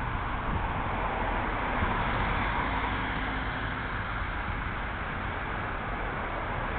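Steady rushing noise of a bicycle moving along a road, with wind on the bike-mounted camera's microphone and tyre rumble, as a car drives past close by, a little louder about two seconds in.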